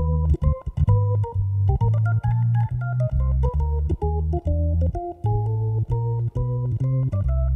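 Hammond B3 organ played with a full-organ drawbar setting: short, detached chords over a strong bass line. A melody line climbs about two seconds in and comes back down.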